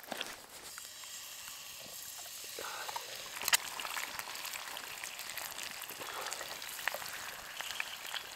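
Eggs frying in hot fat in a cast iron skillet over a campfire: a steady sizzle with scattered sharp pops, the loudest about three and a half seconds in.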